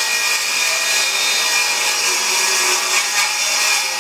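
Electric power saw cutting through a wood board: a loud, steady, bright whine of the spinning blade in the wood. The cut finishes right at the end, leaving only the free-running blade's tone.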